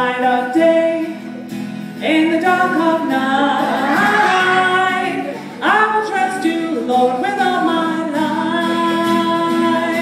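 A woman singing a worship song to her own strummed acoustic guitar.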